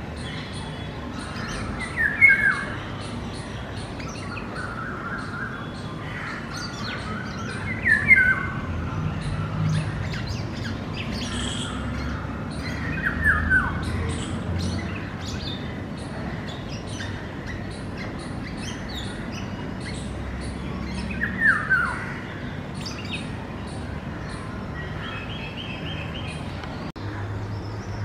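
Indian golden oriole giving four short, harsh calls that sweep downward, several seconds apart, over a steady scatter of faint high chirps from small birds.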